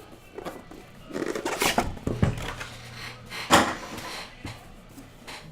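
Cardboard trading-card hobby box and its packaging being handled and opened: rustling and scraping, with a sharp knock about three and a half seconds in.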